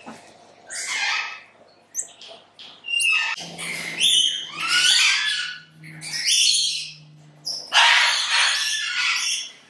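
Small monkeys calling: a string of loud, high-pitched squeaks and squawks, one after another, with a low steady hum underneath from about a third of the way in.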